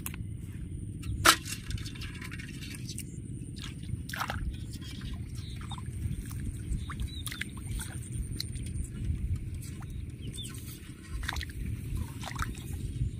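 Hands working a tangled gill net in shallow muddy water: small splashes and clicks, with a sharp click about a second in, over a steady low rumble. A few short high chirps and a thin high steady tone that stops partway through.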